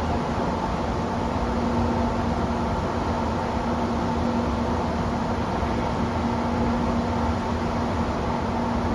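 Trenitalia E.402B electric locomotive running steadily, a constant hum of its cooling fans and electrical equipment, with a low tone and a higher tone held unchanged.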